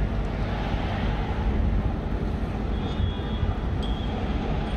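Steady low outdoor rumble of a large urban building site and nearby traffic, with two brief faint high squeaks about three seconds in and a second later.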